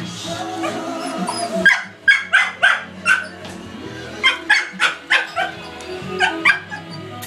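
A dog barking excitedly at a caged pet rabbit: about a dozen sharp barks in quick runs, over music playing on a radio.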